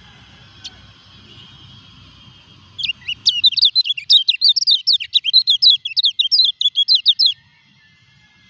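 Caged white-eye (kecial kuning) in moult, singing one fast, high twittering phrase of quick sweeping notes. The phrase starts about three seconds in and lasts about four seconds.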